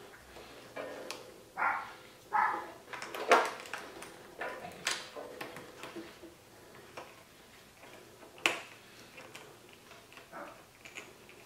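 Scattered clicks and light rattles of small metal parts as gloved hands fit a battery-tender ring terminal under a motorcycle battery's terminal bolt, with two short squeaks about two seconds in.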